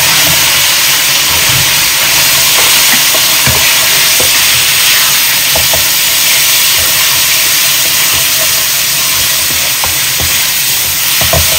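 Thin slices of raw beef sizzling with a steady loud hiss in hot oil in a nonstick wok. A spatula stirs them, giving scattered scrapes and knocks against the pan.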